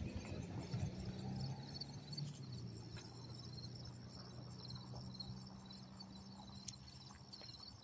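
Insects chirping steadily in a pulsing rhythm, repeating several times a second, over a low steady hum. Footsteps scuff on the pavement, loudest at the start.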